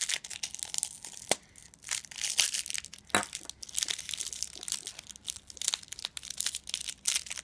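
Crinkly plastic packaging crinkling and rustling in irregular bursts as hands work to get the candy out of the surprise egg, with a couple of sharper clicks.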